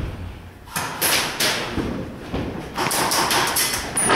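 Thuds and knocks, with several bursts of noise each about half a second to a second long.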